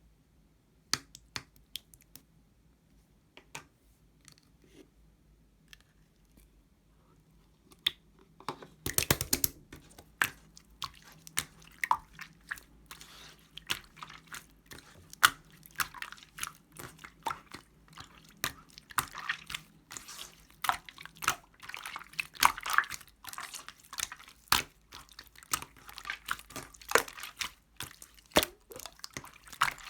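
Hands playing with a melted clear slime, making wet clicks and pops. A few scattered pops at first, then a dense, continuous run of squishing, popping and crackling from about eight seconds in.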